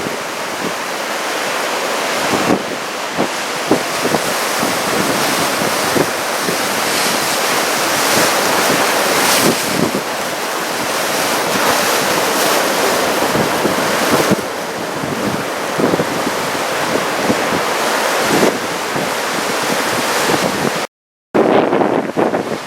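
Heavy surf from a typhoon swell, breaking and washing in a steady loud rush, with strong wind buffeting the microphone in gusts. The sound drops out completely for a moment near the end.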